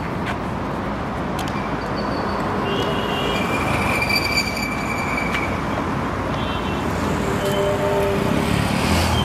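Steady road traffic noise from cars running along a busy street, with a few faint brief tones over it.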